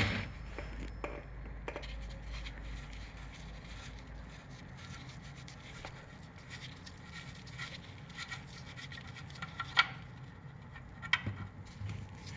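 Faint rubbing and scraping with a few light clicks, the sharpest about ten and eleven seconds in: a gloved hand handling a car's steel engine oil pan from underneath.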